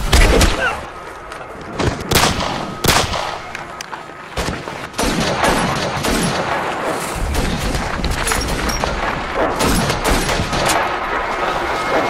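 Rifle gunfire in a firefight, added as film sound effects: scattered single shots in the first few seconds, then a dense, continuous run of shots from about five seconds in.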